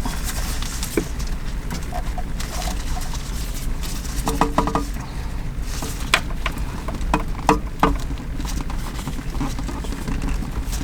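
Plastic wiring-harness connectors and cables being handled and pushed into a car stereo head unit: scattered clicks and rattles, with a brief squeak about four seconds in, over a steady low hum.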